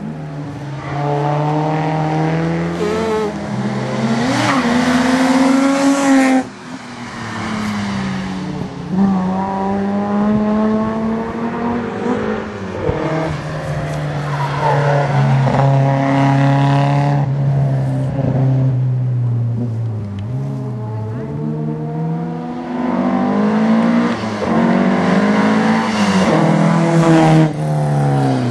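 Historic rally cars at full throttle on a tarmac special stage, engines revving hard and climbing in pitch through one gear after another, with pitch drops as they back off for corners. Several cars pass in turn.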